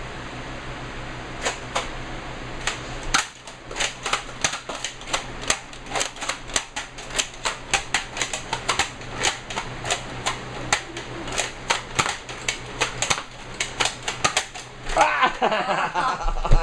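Nerf foam-dart blasters firing over and over: a fast run of sharp clicks and snaps, several a second, beginning about three seconds in. Voices come in near the end.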